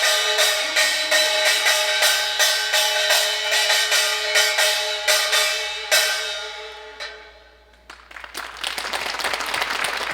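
Korean pungmul percussion band playing a steady driving rhythm with sustained ringing tones, closing on a final stroke about six seconds in that rings away. Audience applause starts about two seconds later.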